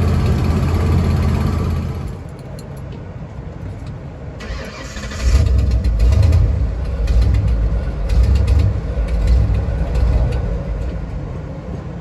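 Ford Bronco's engine running, then dying about two seconds in. After a quiet spell the starter cranks, and a little after five seconds the engine catches and runs unevenly, surging and sagging about once a second: the truck is sputtering, stalling and hard to restart.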